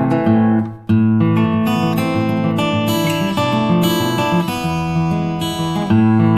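Background music: strummed acoustic guitar chords, with a brief drop-out just under a second in.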